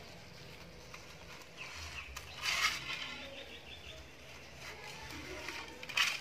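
A metal spoon scooping into the flesh of a halved watermelon, wet scraping and crunching, loudest about two and a half seconds in and again near the end.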